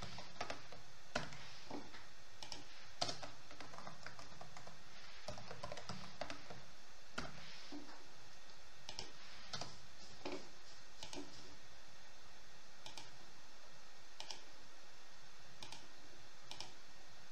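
Typing on a computer keyboard: scattered, irregular keystrokes over a steady hiss.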